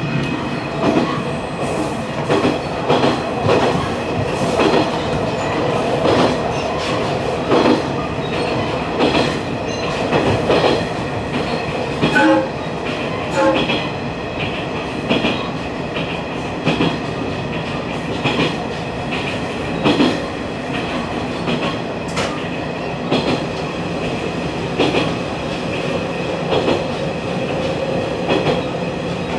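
Diesel railcar running along the Aizu Railway line, its wheels clacking over rail joints again and again at uneven intervals, over a steady running hum.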